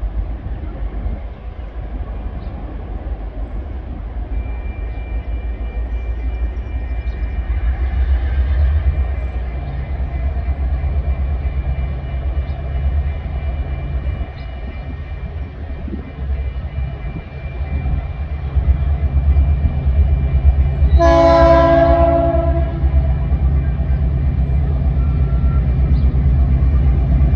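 A diesel locomotive on an approaching train, running and growing louder as it nears. About 21 seconds in it sounds its multi-note horn once for about a second and a half.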